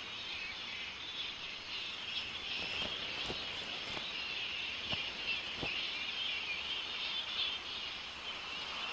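Steady high-pitched insect chorus of tropical forest ambience, with a few faint ticks.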